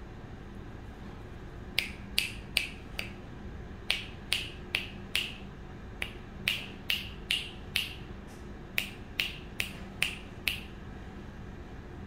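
Sharp clicks in four quick runs of four or five, about two and a half clicks a second, with short pauses between runs.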